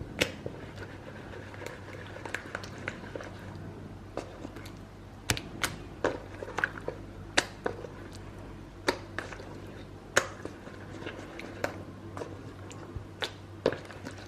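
Scattered light clicks and taps at irregular intervals from handling battered cauliflower steaks in the bowl, over a low steady hum.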